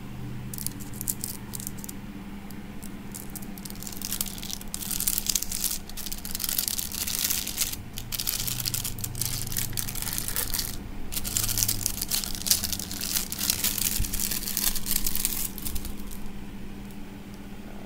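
Holographic hot-stamping foil crinkling and tearing as it is peeled off a row of freshly stamped metal fishing jigs, in two long stretches of rustling with short pauses, dying away near the end. A steady low hum runs underneath.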